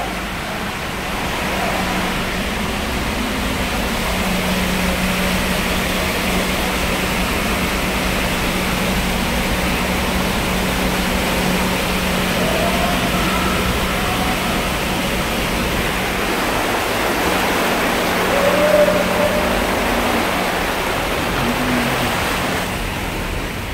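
A vehicle's tyres driving through shallow seawater flooding a road tunnel: a steady rush of splashing water, with a steady low hum underneath.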